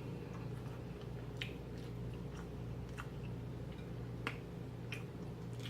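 Close-up mouth sounds of someone chewing food, with a few sharp wet smacks and clicks spread out, over a steady low hum.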